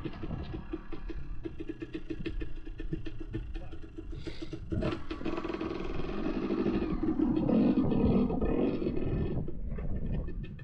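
Dirt bike engine running with an even putter at low revs, then revving harder and louder from about six seconds in before easing off near the end.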